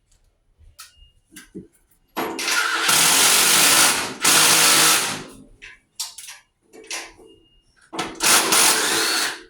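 Power drill running in three loud bursts of one to two seconds each, with short clicks and knocks between them.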